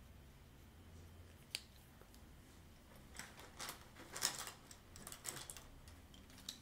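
Pencils and drawing tools clicking and clattering as they are handled on the desk: a single click about one and a half seconds in, a run of clicks and rattling in the middle, and one more click near the end.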